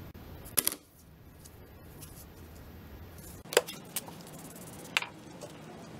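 Thin mirror acrylic sheets and their paper or film backing being handled: a few sharp plastic crackles and taps. The loudest come about half a second in and about three and a half seconds in, with a low steady hum underneath.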